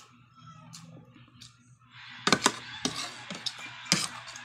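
Metal spoon and fork clinking and scraping against a plate while eating, with several sharp clinks in the second half.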